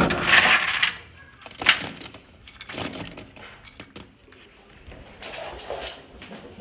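Dry pet kibble rattling and rustling as a small plastic scoop digs into a bin full of it, loudest in the first second, then scattered clicks and rattles of pellets in the scoop.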